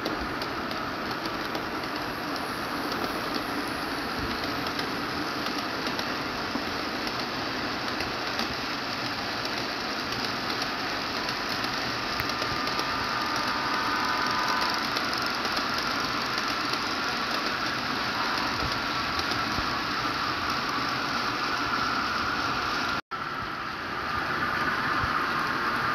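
HO-scale model trains running past on the layout: a steady rolling noise of small wheels on track and electric motors. It drops out for a moment near the end, then comes back slightly louder.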